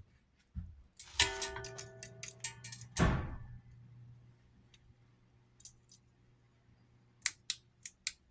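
Ceiling fan being powered up after a capacitor swap: clicks and a short metallic ringing, a thud about three seconds in, and a low steady electrical hum from the Hampton Bay Rockport motor running for several seconds. The hum stops near the end, followed by four quick clicks.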